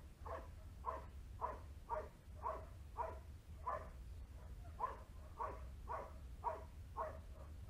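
Dog barking steadily at a helper in a bite sleeve, about two barks a second, as it holds him at bay in protection training.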